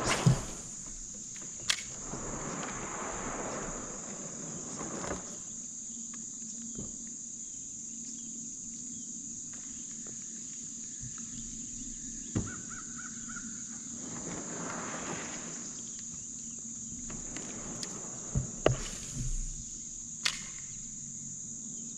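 Steady high-pitched insect chorus, with a few sharp knocks and clicks, the loudest near the start and about three-quarters of the way in, and two spells of soft rushing noise.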